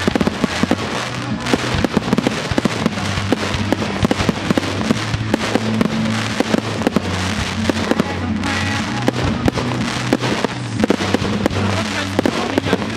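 Aerial firework shells bursting in quick succession, a dense run of bangs and crackling, over music with a steady bass line.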